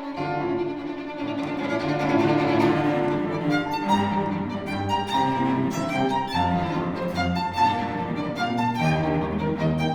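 Classical chamber music, with violin and cello playing sustained lines. A low cello line enters right at the start, and sharper note attacks come in from about three and a half seconds in.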